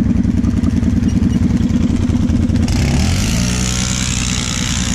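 Kawasaki KFX 700 V-Force quad's V-twin engine chugging at low revs from on board. About three seconds in a second quad pulls alongside and revs up, with a hiss of dirt thrown up by the tyres.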